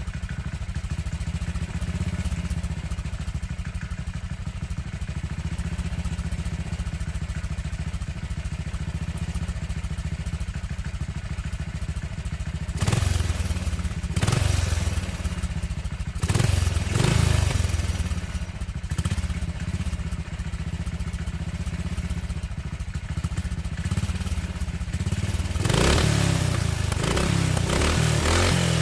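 Motorcycle engine idling with a steady low beat, then revved in a series of short throttle blips about halfway in, each rising and falling in pitch, with a longer rev near the end.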